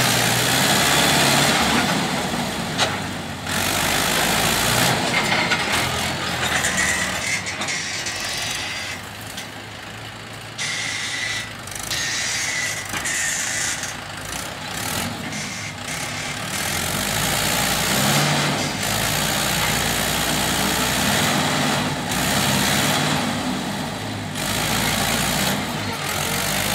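Mahindra 585 tractor's four-cylinder diesel engine working as its front dozer blade pushes soil, the engine note rising and falling with the load.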